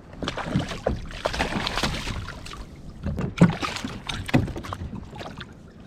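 Water splashing and irregular knocks against a kayak as a cabezon is gaffed and hauled aboard, with the loudest thump about three and a half seconds in.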